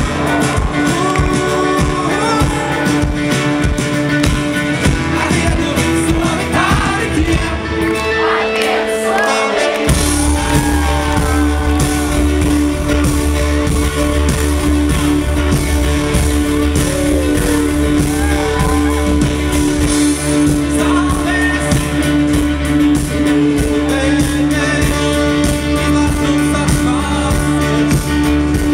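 A live rock band plays a song: a male lead vocal over acoustic guitar, keyboards, bass guitar and drums. About eight seconds in the low end drops away, and it comes back in full about ten seconds in.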